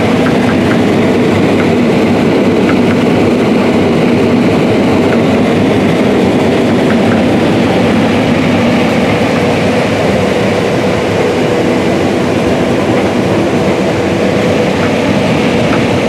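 Case IH 9240 Axial-Flow combine running steadily while harvesting corn with a 16-row corn head, heard from inside the cab as a dense, even mechanical drone with faint scattered ticks.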